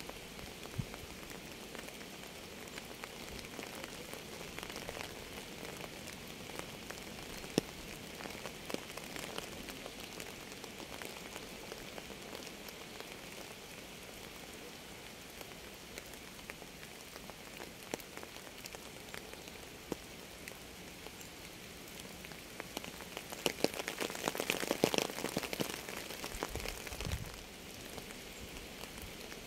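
Steady rain falling on a surface, with many individual drops ticking through the hiss. A spell of heavier, louder drops comes near the end.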